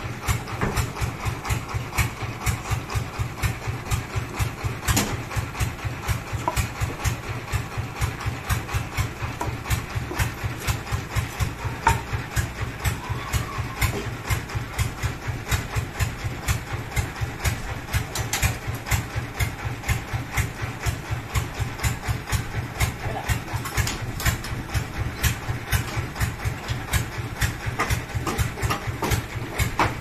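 Sawmill engine idling with a steady, rapid, even beat, with a few sharp knocks now and then.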